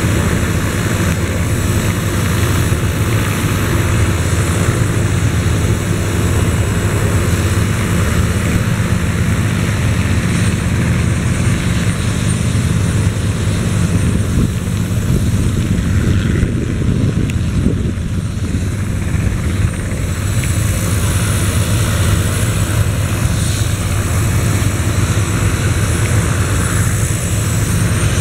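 Helicopter running on the ground: steady rotor chop and engine noise, loud and unbroken.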